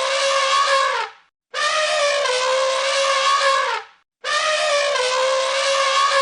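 Cartoon elephant trumpet sound effect, repeated: the end of one call, a full call about two and a half seconds long, then the start of another, with short gaps between. Each call is held on one steady note and drops in pitch as it ends.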